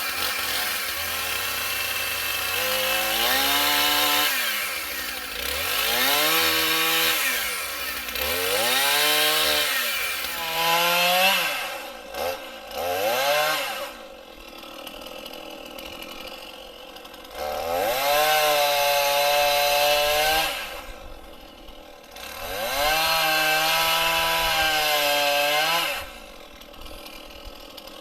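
An engine revving up and down over and over, each rev rising and falling within a second or two, with two longer stretches held at high revs in the second half.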